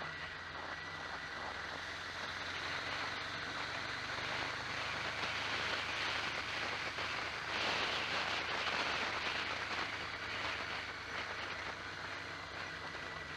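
Onboard sound of a vehicle travelling along the road: a steady low engine drone under a hiss of wind and road noise. The hiss swells about halfway through and eases toward the end.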